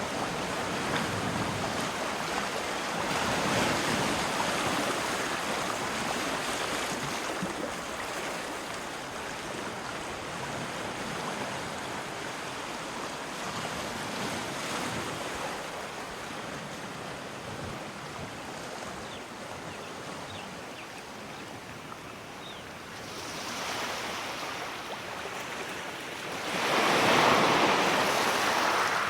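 Sea waves washing ashore as a continuous rush of surf that rises and falls. The loudest wave breaks near the end.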